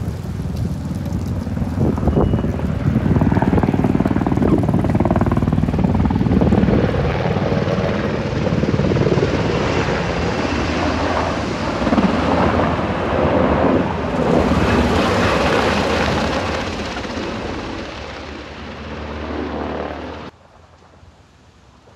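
Firefighting helicopter flying over, its rotor and engine running as a loud, steady din. About 20 seconds in it cuts off suddenly to a much quieter background.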